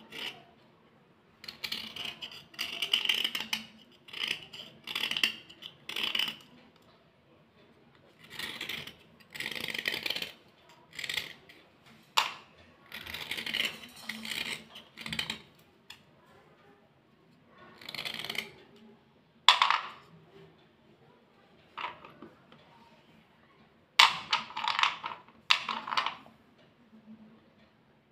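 White slate pencils being scraped clean by hand, in short scratchy bursts of a second or two with pauses between, and a few sharp clicks of slate on slate.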